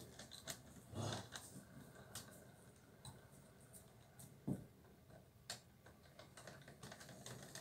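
Near-quiet room with faint, irregular clicks and ticks. A soft thump comes about a second in and a sharper knock about four and a half seconds in.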